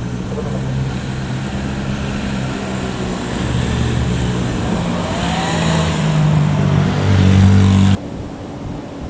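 Motor vehicle engine running with road and wind noise, its pitch shifting and getting louder over the last few seconds, then cut off abruptly about eight seconds in.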